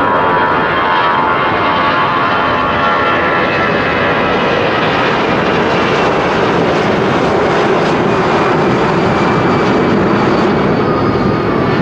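An Airbus A340-300's four CFM56-5C turbofan engines at climb power just after takeoff, a loud, steady roar. At first a stack of whining fan tones rides over it; these fade after a few seconds, leaving a deeper rumble.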